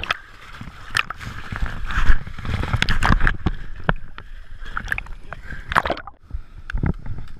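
Water splashing, sloshing and gurgling right at the waterline of a pontoon boat's plastic drums as the boat moves, heard close up with many sharp splashes. Just after six seconds the sound briefly goes dull and muffled as the microphone dips underwater.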